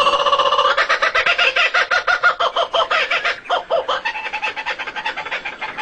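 Recorded bird calls: a fast, even run of short, pitched notes, about nine a second, with a brief break about three and a half seconds in.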